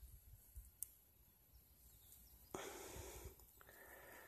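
Near silence, broken by a short soft rustle about two and a half seconds in, from a hand pressing and brushing loose garden soil and dry grass.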